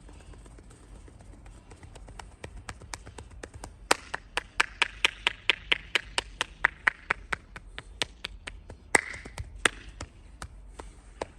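Rapid rhythmic hand slaps of a percussive tapping massage on the body, about five strokes a second, growing louder about four seconds in and tailing off near the end.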